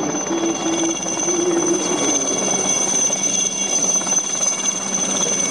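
SA 316B Alouette III helicopter running steadily as it hovers low, its rotor beating over the high whine of its turboshaft engine.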